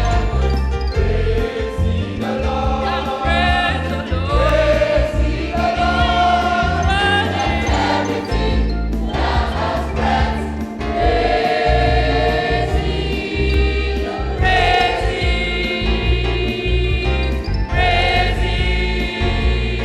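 A choir singing a gospel praise song over a loud band accompaniment with a strong bass beat.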